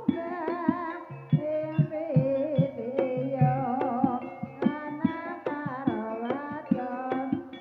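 Live Javanese barongan accompaniment music: frequent hand-drum strokes with a wavering, sliding melody line over them.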